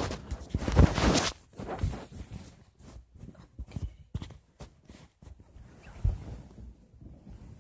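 Handling noise on a phone's microphone: clothing rubbing against it, loudest in the first second or so, then a run of light knocks and taps that grow quieter.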